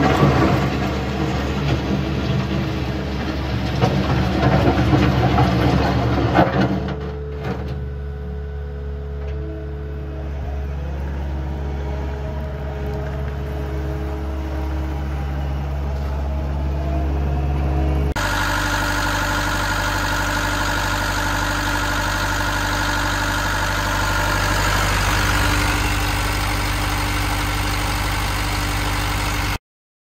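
Cat 279D compact track loader's diesel engine running as the machine moves about. It is louder and rougher for the first seven seconds, then settles to a steadier engine note. The note shifts abruptly about 18 seconds in and cuts off just before the end.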